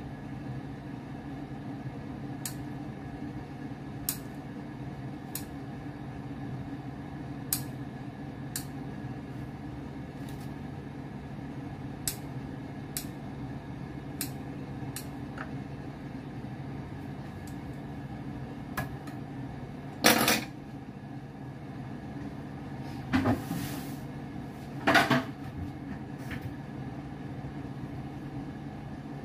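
Kitchen scissors snipping around a slice of bread to cut out its centre: a short sharp click at each cut, spread irregularly over the first twenty seconds, over a steady low hum. Three louder knocks come near the end as things are handled and put down.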